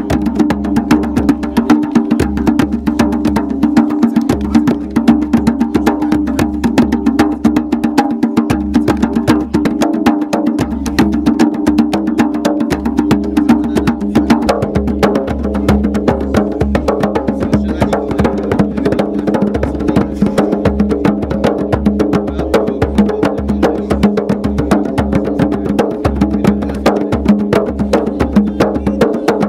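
Djembes, rope-tuned African hand drums, struck with bare hands in a fast, unbroken rhythm, two drummers playing together.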